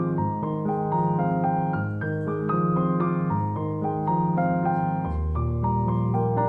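Background music led by piano: a run of gentle notes over held low bass notes.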